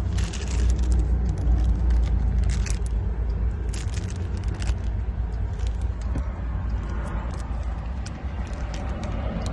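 Repeated sharp clicks and rattles of car keys being handled over a steady low rumble, during key learning in a car's immobiliser programming. The rumble is loudest in the first few seconds.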